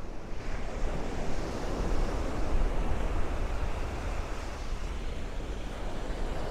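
Small Gulf surf washing onto a sandy beach, one surge building about half a second in and easing off, over a steady low rumble of strong wind on the microphone.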